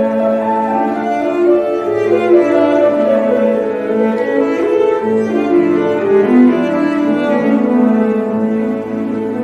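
Cello and grand piano playing classical chamber music together, the bowed cello line moving from note to note over the piano.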